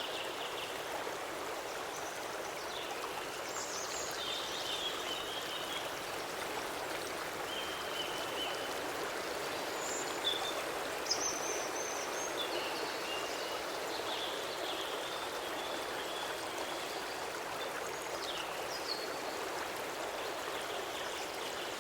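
Natural flowing stream, water rushing and splashing steadily, with short high chirps scattered through it.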